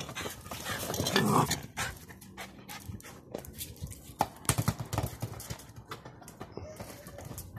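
Pomeranian puppy playing with a soccer ball on stone paving: scattered quick taps and knocks of paws and ball, with a brief dog vocal sound about a second in.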